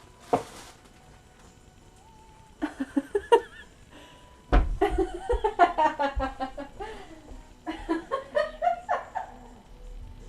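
A voice laughing in runs of short, rapid pulses, with a single thump about four and a half seconds in.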